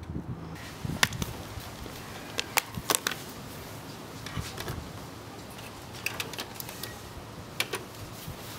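Scattered sharp plastic clicks and taps from a Sony portable CD boombox as a disc is set on the spindle, the CD lid is shut and its buttons are pressed, over a faint steady hiss.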